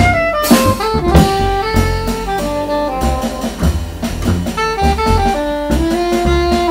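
Jazz trio playing live: a soprano saxophone plays a melody line of held and moving notes over plucked double bass and a Tama drum kit with frequent drum and cymbal hits.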